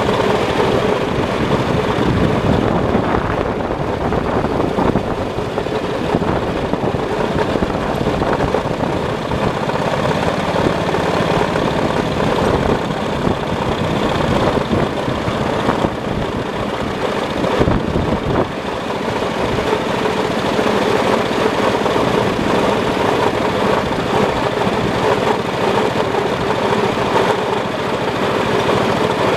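Miniature ride-on locomotive running steadily along a park railway's track, a loud continuous mechanical running noise that dips briefly a little past halfway.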